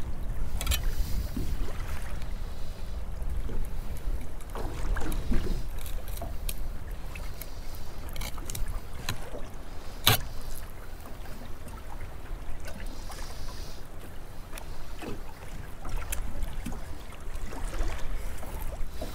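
Steady low rumble of wind and water around a small open boat, with scattered small clicks and knocks as a fish is filleted on board. One sharp knock about ten seconds in is the loudest sound.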